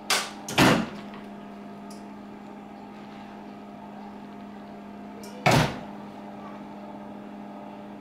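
PS-450 automatic table-top impulse sealer cycling on a foil bag: its sealing bar clunks shut twice in quick succession just after the start, over a steady electrical hum. Another loud mechanical clunk comes about five and a half seconds in.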